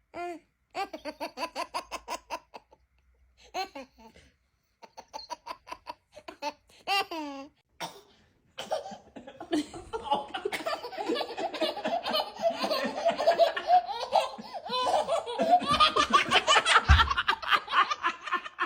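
Babies laughing in a string of short clips: separate runs of quick, breathy giggles broken by brief silences, then from about halfway a long stretch of continuous, louder belly laughter. A low thump near the end.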